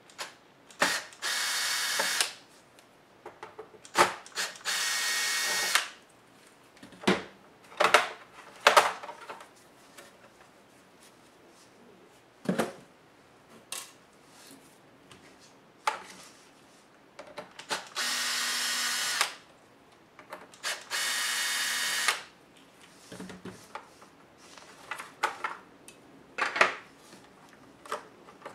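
Small electric screwdriver whirring in four bursts of about a second each, backing screws out of a laptop's case. Light clicks and taps of tools and small parts come in between.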